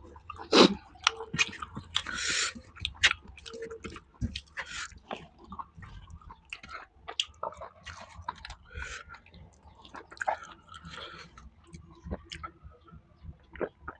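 A person chewing and eating with irregular wet mouth clicks and smacks, a mouthful of rice and spicy chicken fry.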